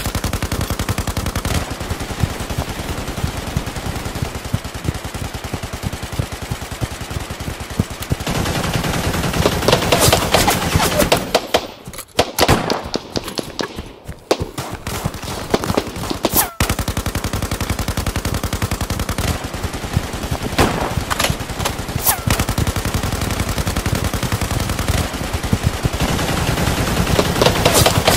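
Battle gunfire: rapid, continuous machine-gun fire with scattered single shots. It gets louder in close bursts about nine to eleven seconds in and again near the end, thins out briefly around the middle, and has one sharp, loud crack a few seconds later.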